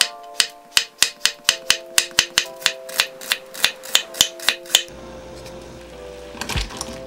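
Chef's knife chopping through zucchini and then onion onto a wooden cutting board, about twenty quick even strokes at roughly four a second. About five seconds in the chopping stops and a low rumble of boiling water takes over, with a couple of splashes near the end as zucchini pieces are tipped into the pot.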